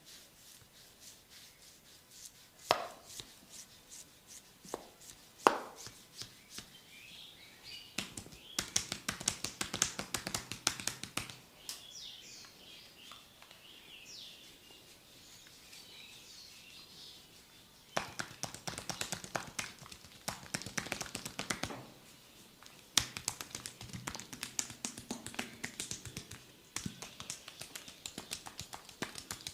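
Percussive massage strokes on a person's body: a few single sharp slaps, then three runs of fast, steady tapping.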